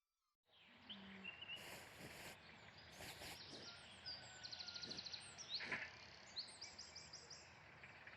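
Faint outdoor ambience of small birds chirping, starting about half a second in: quick runs of high chirps and short trills over a soft background hiss.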